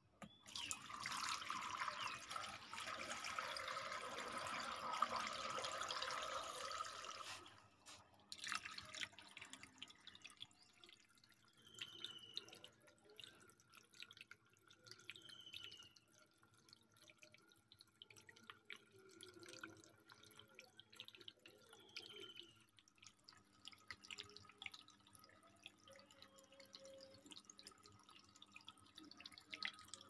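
Water trickling from a small terracotta-pot tabletop fountain, spilling over the clay lip onto pebbles. It is a steady splashing for about the first seven seconds, then drops to faint trickles and drips.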